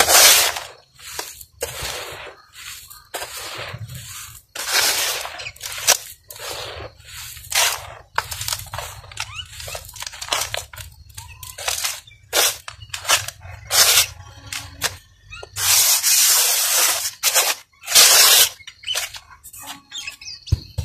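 Dry, stony red soil being raked, scooped and dropped by hand in a plastic tub: a run of irregular gritty crunching and rustling bursts as the dirt and pebbles shift and fall. A few longer bursts of falling soil stand out, the longest lasting about a second and a half, a little past the middle.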